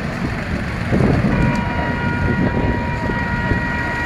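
Outdoor noise at a large building fire: a dense, steady rumble with a few brief voices. About a second in, a steady high tone starts and holds for about three seconds.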